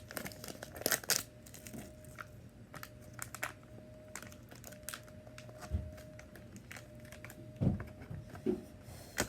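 Packaging crinkling and crackling in irregular clicks as hands work to pull a slime donut toy out of it, with two soft thumps in the second half.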